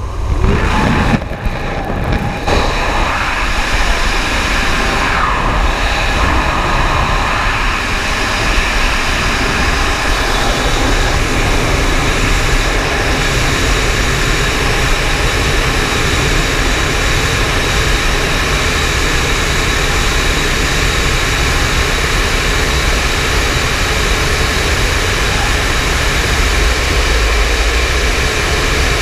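Steady wind rush on a helmet-mounted action camera during skydiving freefall. It is uneven and gusty for the first couple of seconds at the exit from the aircraft door, then settles into an even rushing noise.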